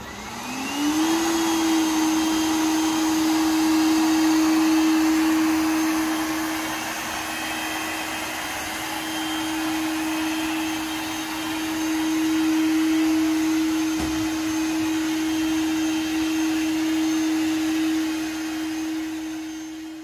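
iLife B5 Max robot vacuum starting a cleaning run: its suction motor spins up with a rising whine over the first second, then runs with a steady hum and hiss. The level swells and eases slightly as it runs.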